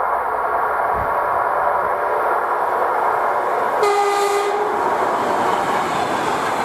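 ER2 electric multiple unit running past at speed with a steady rumble and hum. About four seconds in it gives one short horn blast.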